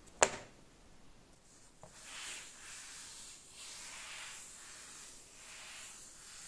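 A sharp click near the start. Then a hand slides across the cloth surface of a Sandberg XXXL gaming desk pad, a soft rubbing hiss that swells and fades about three times as the palm strokes back and forth.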